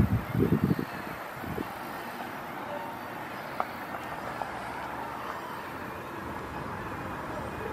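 Steady outdoor background noise, with a few low thumps in the first second and a half.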